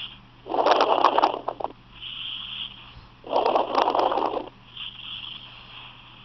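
A person with hiccups, breathing audibly through the episode: two long noisy breaths about a second each, roughly three seconds apart, with fainter breathing between. Recorded on a phone.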